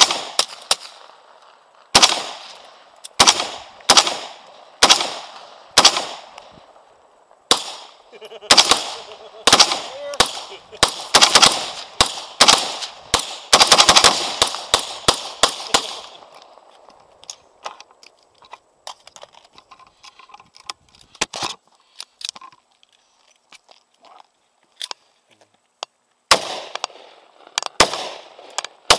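Gunshots fired right at the microphone, each followed by a short echoing tail. At first come single shots about a second apart, then a rapid string of shots for about eight seconds in the middle. Then fainter, scattered cracks, and a few loud shots again near the end.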